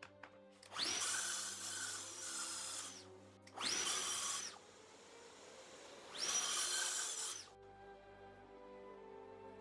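Plunge-cut track saw running along its guide rail and cutting board, in three runs: a longer cut of about two seconds, then two shorter ones, each starting with the motor whining up to speed.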